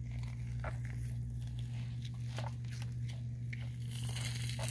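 Soft crackling and tearing of connective tissue as a preserved snake's membrane-wrapped organs are peeled free of the body cavity by hand, with a brief, louder tearing hiss near the end. A steady low hum runs underneath.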